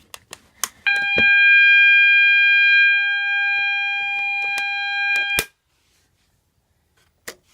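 Clicks as a fire alarm call point is pressed, then a KAC electronic fire alarm sounder, run off a 9-volt battery, sounds a continuous steady tone for about four and a half seconds. The tone cuts off suddenly with a click as the call point's circuit is broken.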